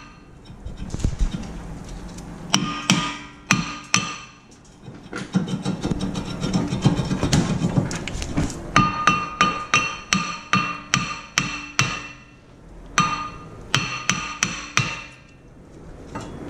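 A hammer striking the cast-iron front brake rotor of a 2010 Honda Civic to knock it loose from the hub: runs of sharp metallic blows, each ringing briefly, at about three a second, with short pauses between runs.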